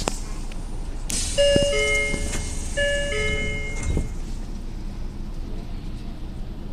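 Commuter train's door-closing chime, a two-note ding-dong, high then lower, played twice over a hiss of air from the door gear. The doors thud shut about four seconds in, and after that only the train's steady low rumble is left.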